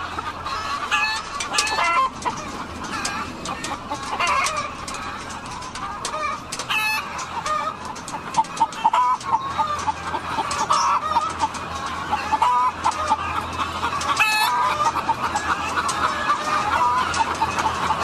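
Many caged laying hens clucking and calling at once in a dense, constant chatter, with louder squawks standing out now and then. A low steady hum runs underneath.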